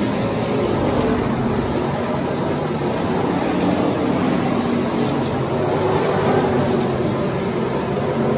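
Engines of a pack of factory stock race cars running together as they race around a dirt track: a loud, steady, overlapping engine sound.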